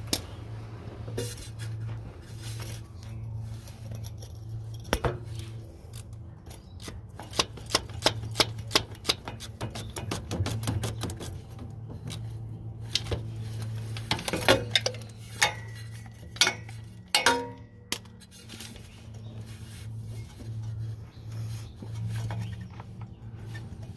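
Ratchet wrench clicking in quick runs on the starter bolts of a 2011 Hyundai Accent, with metal tools clinking against each other.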